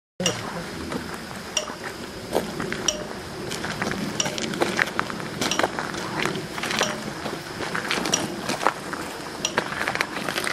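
Spirit box sweeping through radio stations: a steady hiss of static broken by irregular sharp clicks and short blips, a few each second.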